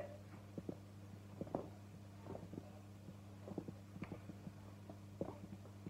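Soft rustles and scattered light clicks of hair being gathered and tied into a ponytail by hand, over a steady low electrical hum.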